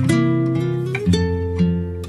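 Background music: plucked guitar notes ringing out, with a new note struck at the start and another about a second in.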